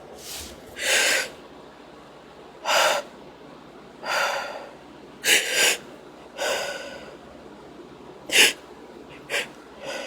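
A woman's gasping, breathy inhales and sneezy snorts, about ten short bursts, as a sneeze fit builds from tickling her nose with wadded-up toilet paper. The sharpest and loudest burst comes near the end.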